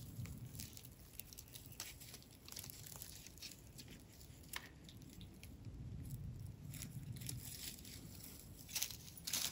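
Mostly quiet woods: a faint low rumble with a few small, soft clicks and light rustles scattered through it.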